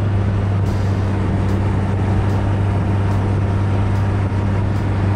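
Land Rover Defender 110 driving steadily on snow on 33-inch mud-terrain tyres, heard from beside the front wheel: a steady low drone with a loud, even rush of tyre and wind noise over it.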